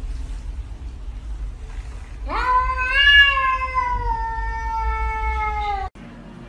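A tabby cat meowing: one long, drawn-out meow that starts about two seconds in, rises, then slowly falls in pitch for over three seconds before cutting off suddenly.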